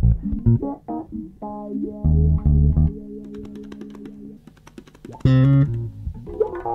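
Instrumental theme music: plucked bass and guitar notes over held tones, with a louder accent about five seconds in.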